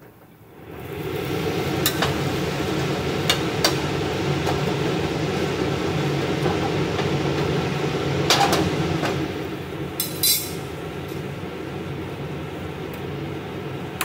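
Parathas cooking on iron tawas over a gas stove: a steady rushing noise that starts about half a second in. Metal tongs click sharply against the griddles about half a dozen times, loudest near the middle and about ten seconds in.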